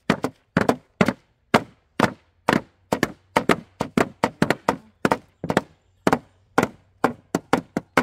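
Two hammers, one a claw hammer, pounding through freezer paper onto flowers laid on wooden boards: a rapid, uneven run of about three blows a second from two people striking at once.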